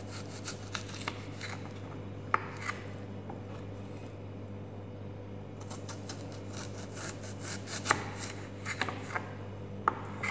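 Knife slicing thick rounds from a white onion on a wooden cutting board, the blade knocking on the board now and then, the sharpest knocks about two seconds in and again near the end.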